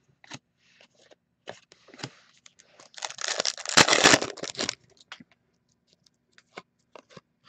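A foil trading-card pack torn open: one noisy tear lasting about a second and a half, starting about three seconds in, amid light ticks and rubs of cards being handled.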